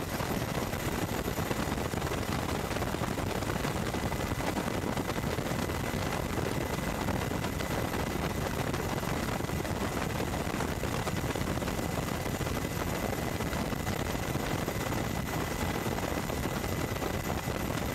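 Aircraft turbine engine running steadily: a continuous roar with a thin, steady high whine over it.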